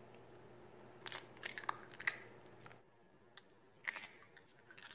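Eggshells cracking as eggs are broken into a bowl: a few faint, short cracks and crunches about a second in, again around two seconds, and near the end.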